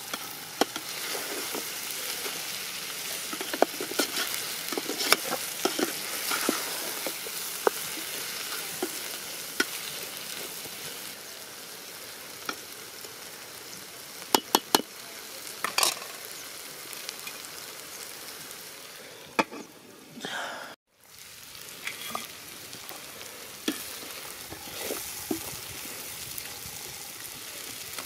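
Chicken curry sizzling in a large aluminium pot, with the scrape and clack of a metal spatula stirring it against the pot's sides. The sizzle cuts out for a moment about two-thirds of the way through.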